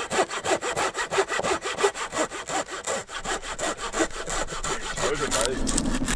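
Hand saw cutting through wood in quick, even back-and-forth strokes, about five a second, stopping about five seconds in.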